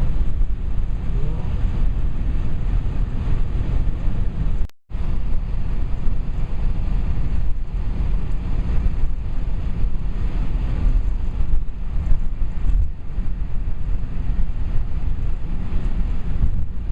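Steady rumble of wind and road noise from a moving vehicle, heaviest in the low end; the sound cuts out completely for a moment about five seconds in.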